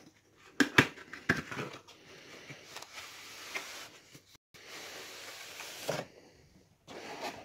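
Cardboard model-train box being handled and opened, with a few sharp knocks in the first second and a half. Then a long rubbing, scraping hiss as the polystyrene tray slides out of the cardboard sleeve, stopping about six seconds in.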